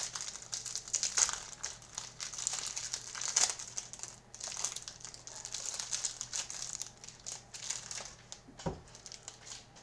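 Plastic wrapping of a trading-card hanger box crinkling and crackling irregularly as it is handled, with a single soft thump near the end.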